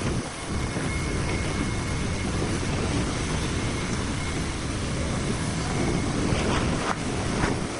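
Steady rushing noise with a low rumble from wind and nearby machinery, with a faint steady high whine that may be the TIG arc on the pipe.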